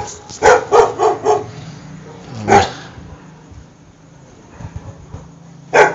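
Dogs barking: a quick run of about four barks in the first second and a half, one more about two and a half seconds in, and another near the end, over a faint low hum.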